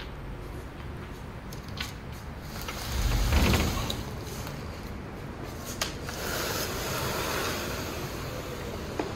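A tall door being pushed open by hand, with a few sharp clicks and a loud low rumble of the door moving about three seconds in, followed by a steadier hiss of outdoor air.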